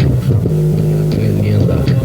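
Loud music with a heavy sustained bass line and a beat, played through a car sound system's subwoofers.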